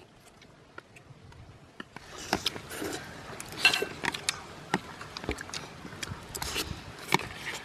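Metal spoon scraping and clinking against a ceramic soup bowl as it stirs and lifts pieces of frog from the soup, a quick run of clicks and scrapes with one brighter ringing clink partway through. The first couple of seconds hold only faint clicks.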